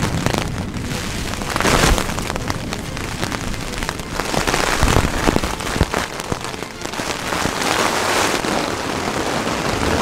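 Heavy rain drumming on a nylon dome tent, heard from inside, with a dense patter of drops on the fabric. The rain swells in gusts about two and five seconds in, as the wind shakes the tent walls.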